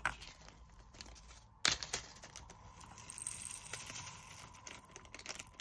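Small clear plastic diamond-painting drill container being handled: a sharp plastic click about a second and a half in, with lighter clicks and a faint rustle around it.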